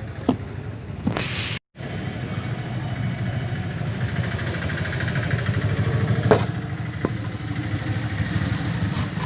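A vehicle engine running steadily, with a few sharp clicks and knocks over it and a brief cut in the sound about a second and a half in.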